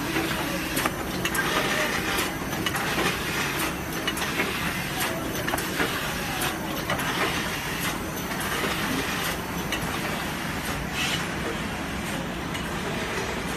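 Carton film overwrapping machine and surrounding factory machinery running: a steady mechanical din with frequent irregular clicks and clacks.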